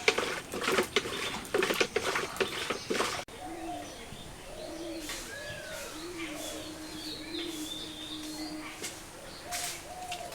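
Rope-pulled wooden churn beating cream and water in a bucket, a fast splashing clatter, for about three seconds. After a sudden break, doves cooing in low repeated calls with small birds chirping.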